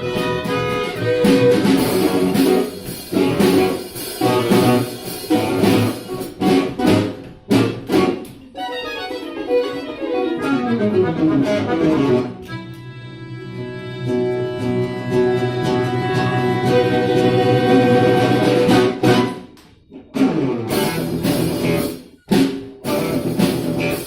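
An instrumental ensemble playing live music: a choppy, rhythmic passage with sharp breaks, then a run of falling notes about nine seconds in, leading into a long held chord. The music breaks off briefly near the end and starts again.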